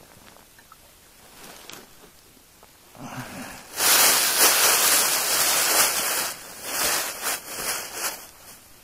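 Loud rustling and crackling close to the microphone, coming in about three seconds in and loudest soon after, then rising and falling.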